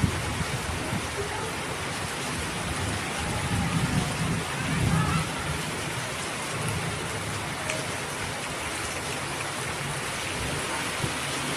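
Heavy rain pouring down steadily. A low rumble swells and fades about four to five seconds in.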